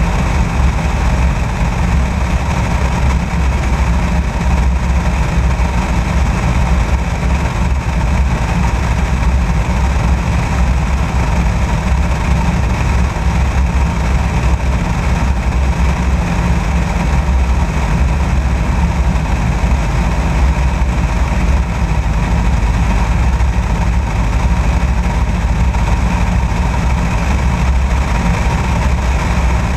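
Light aircraft in level flight: a steady engine drone mixed with heavy wind rush over the camera mounted outside the fuselage.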